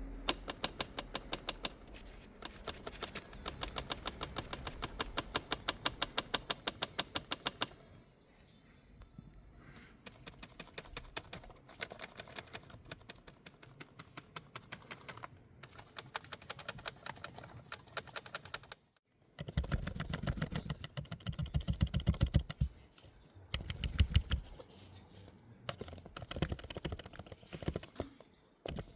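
Long runs of rapid, evenly spaced mechanical clicking, several clicks a second. Past the middle it turns into a heavier, deeper clatter.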